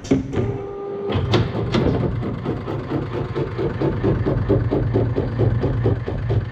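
ODM Super Sewer automatic book sewing machine running as it sews sheets, a fast, even mechanical clatter of about five strokes a second. The clatter eases for about a second just after the start, with a steady hum, then picks up again.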